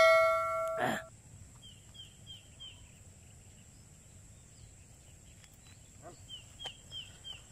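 A bell-like notification ding rings and dies away within the first second. Then a bird gives two runs of short, falling chirps, about four a second, over a steady high insect drone.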